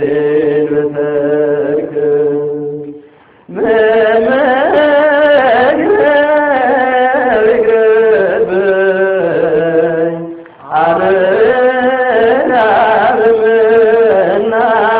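Ethiopian Orthodox hymn (mezmur) being sung in long, wavering held notes. The singing breaks off briefly about three seconds in and again near ten seconds.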